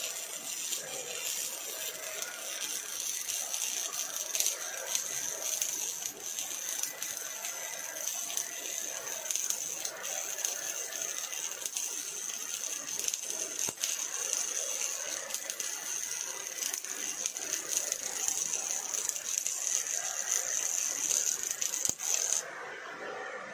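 Welding arc from an OTC robot arc-welding a steel frame, crackling and hissing steadily, then cutting off suddenly near the end as the weld stops.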